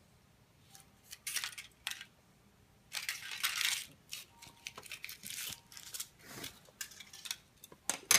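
Crinkling and rustling of a wrapper being handled, in several bursts of a second or less, with a few small clicks and a sharp click near the end.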